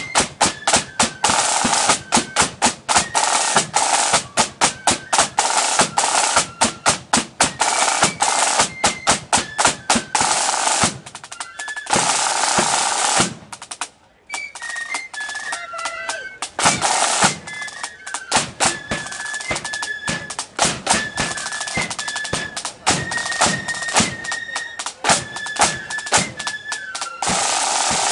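Marching flute band playing: rapid snare drum strokes and rolls over a bass drum, with flutes carrying the tune. The band breaks off briefly about fourteen seconds in, and the flute melody comes through more clearly after the pause.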